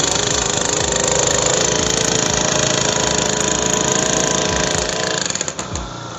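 Petrol-engined post driver running at full throttle, its hammer rapidly pounding a steel stake into the ground. It winds down and stops near the end.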